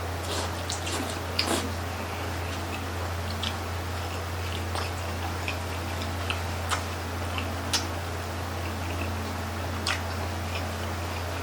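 Mouth sounds of eating grilled chicken-intestine (isaw) barbecue skewers: chewing and biting, with scattered small clicks and smacks. A steady low hum runs underneath.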